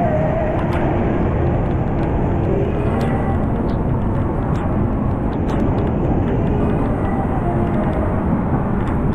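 Wind and rain buffeting a handheld camera's microphone: a steady, loud, deep rushing noise, with scattered small ticks of raindrops striking it.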